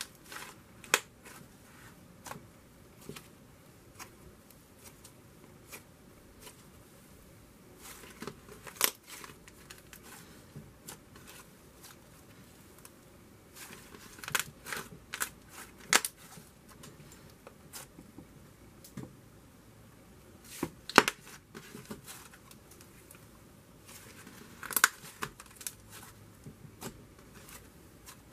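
Thick cloud cream slime being squished, folded and stretched by hand, giving irregular sticky clicks and pops, sometimes several in quick succession.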